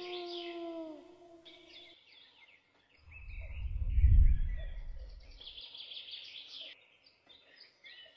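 A wolf howl, held on one pitch and then falling away about a second in, over a steady chorus of birdsong. About three seconds in, a deep rumble swells, peaks near the four-second mark and fades out by about five and a half seconds; it is the loudest sound here.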